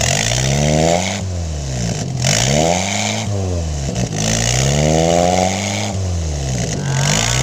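The Mitsubishi Colt T120 pickup's petrol engine is revved up and down about four times. It exhausts through a second-hand Suzuki Satria FU motorcycle muffler that has been drilled out for a deeper, racing exhaust note.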